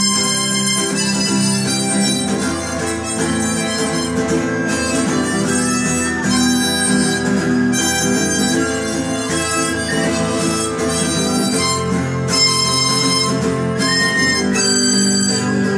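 Harmonica playing a lead line into a vocal microphone over two strummed acoustic guitars, in a live acoustic band performance.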